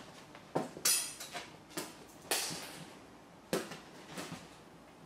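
A cat's paws thumping and scuffing on sofa cushions as it jumps up and moves about: a run of seven or eight sudden soft thumps and brushing scrapes, the loudest about a second in and just after two seconds.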